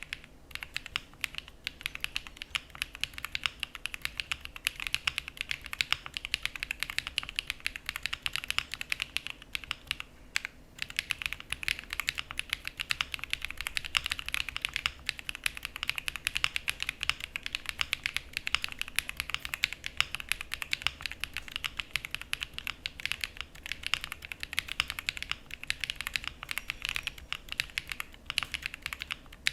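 Fast continuous typing on a Jris75 mechanical keyboard with Sarokeys BCP linear switches: a dense stream of key clacks with a brief pause about ten seconds in.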